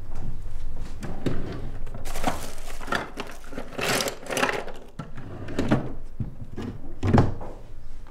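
Rummaging at a bedside table: a drawer worked open and shut and things shuffled and knocked about inside it, a run of knocks and rustling with a heavy knock about seven seconds in.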